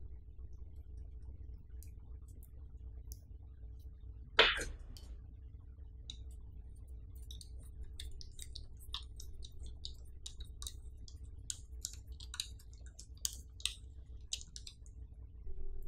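Plastic and metal parts of a BEIKE QZSD-999H tripod pan head being handled: one sharp knock about four and a half seconds in, then a run of small, irregular clicks and ticks as the head is turned over and a locking knob is worked.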